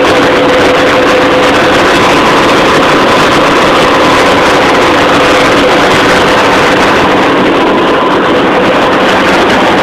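Farm tractor engine running steadily, heard loud from inside the cab, with a constant whine over the engine noise.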